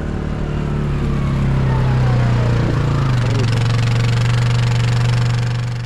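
Yamaha Wolverine X2 side-by-side's engine running steadily as the buggy drives up close, getting louder over the first two seconds, with its pitch dropping slightly about three seconds in.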